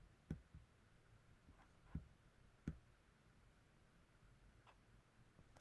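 Near-silent room tone with three faint, short clicks from operating a computer, as the presentation is put into full-screen view.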